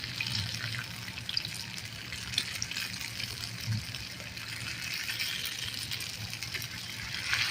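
Oil sizzling steadily in a frying pan as flour-battered leaves deep-fry, with small pops and crackles.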